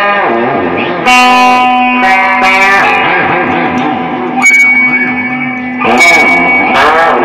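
Electric guitar played through effects: chords struck about a second in, at about four and a half seconds and again at about six seconds, each left ringing, with notes dipping and bending in pitch between strikes.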